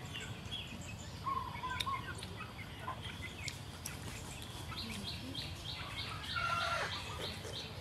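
Birds chirping and calling in the background, short scattered whistles and chirps, joined about five seconds in by an even series of high pulses at about three a second.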